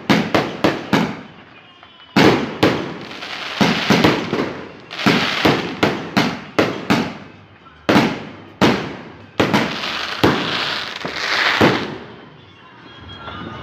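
Fireworks going off in quick succession: sharp bangs, often several a second, with a longer crackling spell from about nine to twelve seconds in, then dying away.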